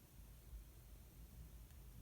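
Near silence: room tone with a low rumble and a faint tick near the end.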